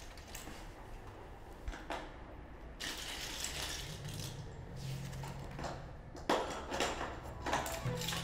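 Small toy building pieces clicking and rattling as they are handled and sorted on a hard floor. A low steady tone comes in near the end.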